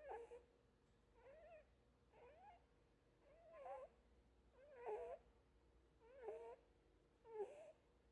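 Lop-eared rabbit snoring in deep sleep: faint, short snores with a wavering pitch, about one a second, seven in all.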